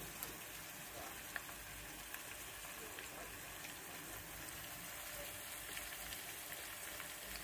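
Sliced shallots and chopped garlic sizzling in oil in a non-stick wok: a steady, soft frying hiss, with a few sharp clicks in the first two seconds.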